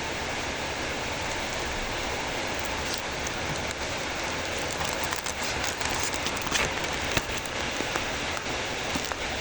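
Heavy rain falling steadily, an even hiss with scattered sharper drops and splashes, thickest in the middle of the stretch.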